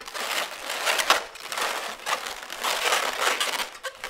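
Inflated latex modelling balloons rubbing and scrunching against one another as they are wrapped and twisted together by hand, in irregular spurts.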